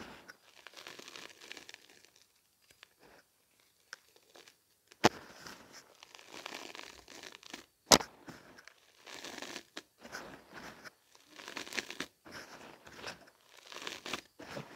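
A hand raking, squeezing and crumbling dry gym chalk powder and lumps, giving bouts of soft crunching and rustling. Two short sharp snaps come about five and eight seconds in.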